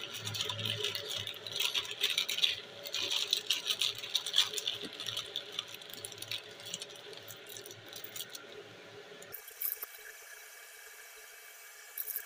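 Screws being driven into a wooden frame with a screwdriver: irregular scraping, creaking and clicking that stops about nine seconds in.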